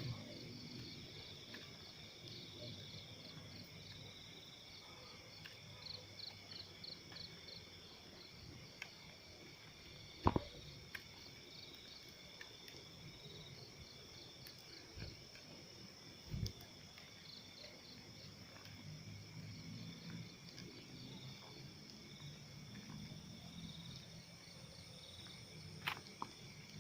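Night insects, crickets among them, chirping faintly and steadily: a high continuous drone with runs of quick, evenly pulsed trills. A few short thumps or knocks stand out, the loudest about ten seconds in.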